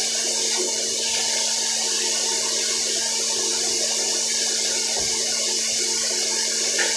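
A steady, even rushing hiss with a faint steady hum under it, unchanging throughout, and one brief low thump about five seconds in.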